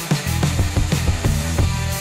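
Background music with a steady drum beat, about three hits a second, over a bass line.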